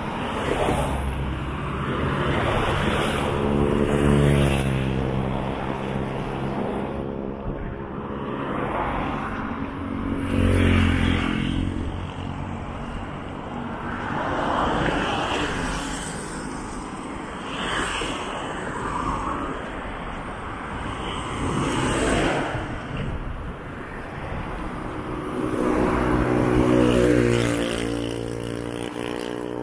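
Road traffic passing close by on a busy multi-lane road bridge: cars and vans swell up and fade away one after another with tyre noise and engine hum. Engine drone from passing vehicles is strongest about four seconds in and again near the end.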